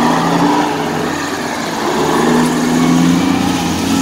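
BelAZ mining dump truck's diesel engine running as the truck moves past at close range, a steady drone whose note swells again about halfway through as it pulls away.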